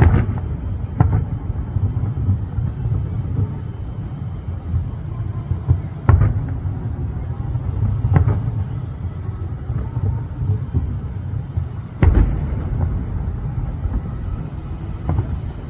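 Distant aerial fireworks shells bursting: about half a dozen sharp booms at irregular intervals, the loudest about six and twelve seconds in, over a steady low rumble.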